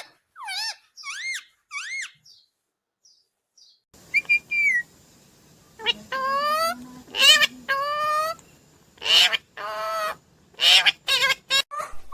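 Indian ringneck parakeet calling: three short whistled notes that rise and fall, a pause of about two seconds, then longer wavering calls and loud harsh squawks near the end.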